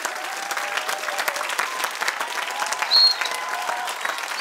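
Theatre audience applauding steadily, with voices calling out. A brief shrill whistle cuts through about three seconds in.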